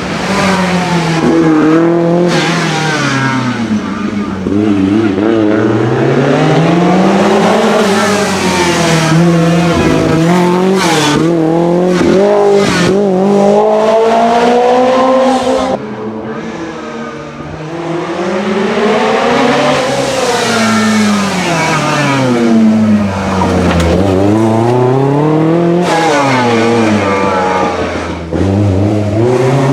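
Lancia Rally 037's supercharged four-cylinder engine at full rally pace, revs climbing and dropping over and over through the gears and braking. There is a string of sharp cracks about a third of the way in.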